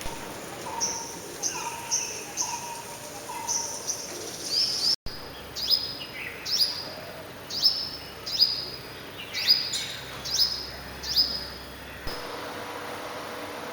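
Small birds chirping: a run of short, high chirps, each sliding down a little in pitch, repeated about once or twice a second. There is a brief dropout partway through. The chirps stop near the end, leaving a steady hiss.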